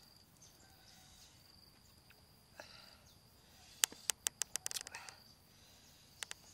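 A quick run of about eight sharp clicks in just over a second, about four seconds in, and two more near the end, as a green lemon wedge is dipped and worked into chili-salt paste in a wooden mortar. An insect keeps up a faint, steady, high trill behind.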